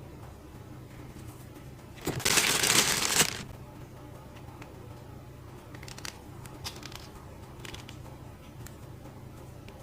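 Packaging being handled: a loud rustle lasting about a second, some two seconds in, then a few light clicks and taps.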